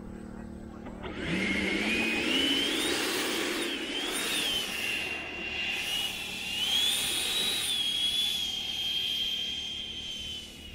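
Electric ducted fan of a 12S HSD Jets Super Viper RC jet whining as the jet taxis on grass. The whine starts about a second in and rises in pitch as the throttle comes up, rises and dips a few times, then holds steady and fades as the jet moves away.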